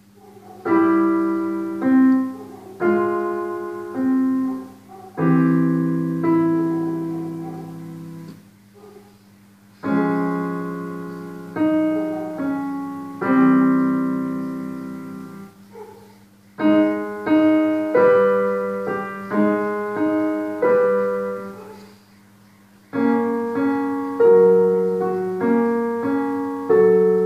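A child playing a slow children's piece on a digital piano: phrases of single notes and chords, each held and fading, separated by short pauses.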